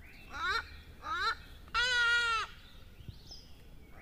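A goat bleating three times: two short bleats rising in pitch, then a longer, held bleat near the middle.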